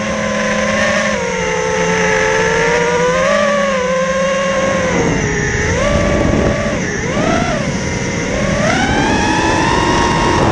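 Armattan Mongoose FPV quadcopter's brushless motors and propellers whining in flight, recorded on board. The pitch dips and rises with throttle changes around the middle, then climbs near the end and holds high.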